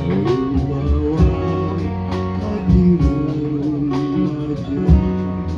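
Live band music: two guitars playing together, with a man singing into a handheld microphone.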